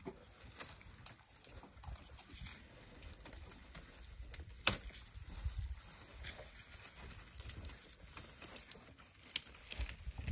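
African elephants browsing on dry bushes close by: scattered twig snaps and rustling. One sharp crack comes a little under halfway through, and a quick run of snaps comes near the end.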